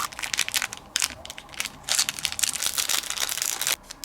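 Crinkling and crackling of plastic packaging being handled and opened, a dense run of irregular crackles that stops near the end.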